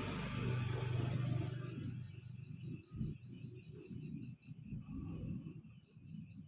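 A cricket chirping steadily: a rapid, even train of high pulses. Softer irregular low sounds lie beneath it.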